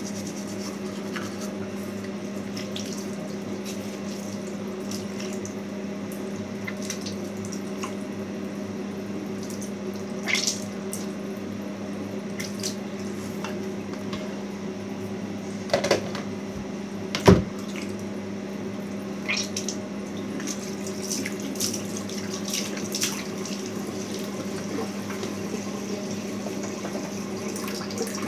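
Bathroom tap running steadily into the sink over a steady low hum, with a few sharp knocks and clinks, the loudest about two-thirds of the way through.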